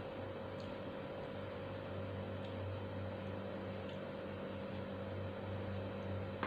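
Steady low hum and hiss of room noise, with faint, irregular small clicks from eating by hand off a plate, and a sharper click at the very end.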